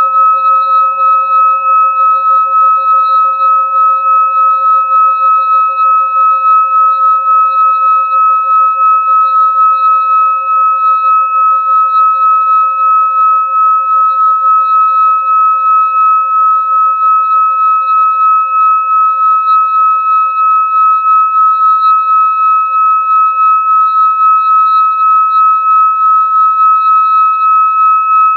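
Singing bowl rubbed around its rim with a wooden mallet, giving a sustained ringing tone with a strong high overtone over a lower fundamental, wavering in loudness two to three times a second.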